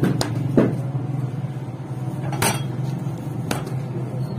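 A few sharp metallic knocks and clinks, the loudest about halfway through, over a steady low machine hum.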